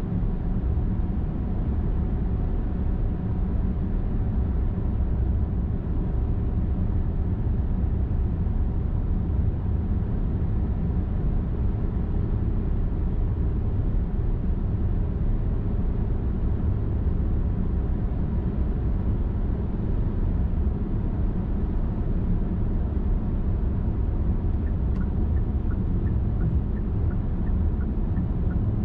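Steady low road rumble of a car driving on a highway: tyre and engine noise with no change in speed. A faint run of small regular ticks comes in near the end.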